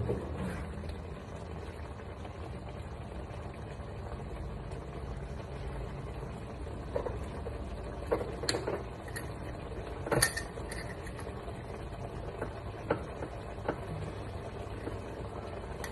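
Kitchen sounds: a steady low hum, with occasional clinks and knocks of utensils and dishes being handled, the sharpest about eight and ten seconds in.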